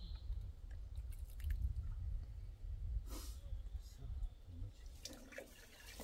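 Small water sounds at a stone spring basin: drips and splashes with a few light clicks over a low rumble, and a short rush of noise about three seconds in.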